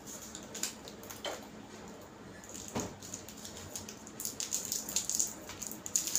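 Small plastic snack wrapper crinkling and crackling in the hands as it is torn open, in irregular bursts that grow busier toward the end.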